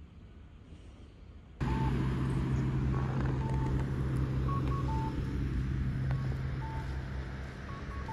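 A loud steady low hum with noise starts suddenly about a second and a half in, and over it short electronic beeps at two pitches, a higher pair then a lower one, repeat every second or two.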